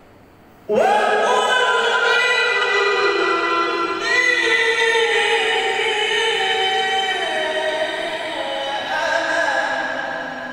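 A male Qur'an reciter (qari) chanting in the melodic tilawah style, beginning about a second in with a rising onset and then long held, ornamented notes that step down in pitch.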